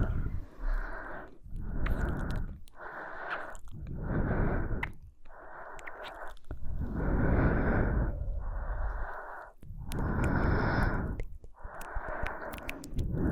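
A woman's close-miked breathing, a steady run of slow, airy in- and out-breaths, each about a second long with short pauses between them.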